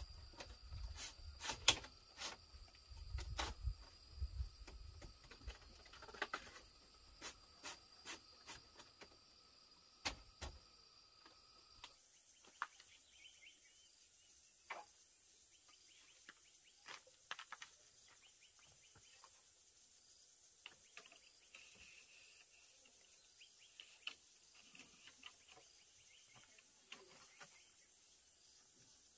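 Light knocks and clacks of split bamboo slats being fitted into a bamboo wall, over a steady high insect buzz. About twelve seconds in the knocking thins to occasional faint taps, and a single higher steady insect whine carries on.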